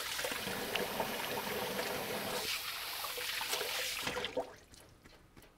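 Kitchen sink faucet running, water splashing over hands being washed under it; the water stops about four seconds in.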